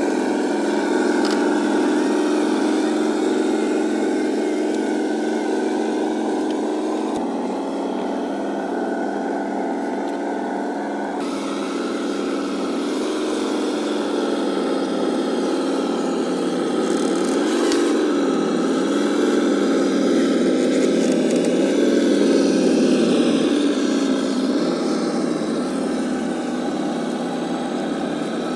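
Radio-controlled scale Scania 8x8 truck driving under load, its drive making a steady motor hum. The hum dips and rises in pitch about two-thirds of the way through and changes abruptly twice earlier on.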